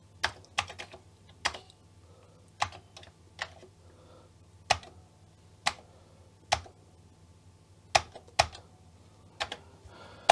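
Keys on a Commodore 64 keyboard pressed one at a time: about fifteen separate clicks, unevenly spaced, one or two a second. The owner suspects some of the keys are bad.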